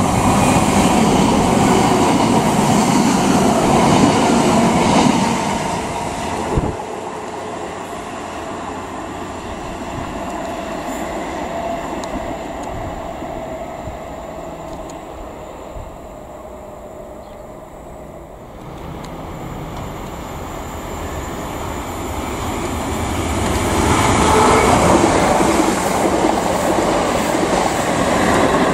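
Greater Anglia Class 379 electric multiple units running through on the rails. One passes loudly at the start, the sound cuts off abruptly about six and a half seconds in, and a quieter rumble follows. It then swells to a second loud pass about 24 seconds in.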